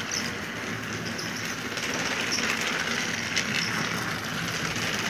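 Two battery-powered Thomas & Friends TrackMaster toy engines running on plastic track: a steady whir of small electric motors and gears, with the wheels rattling and clicking over the track. It grows slightly louder about two seconds in.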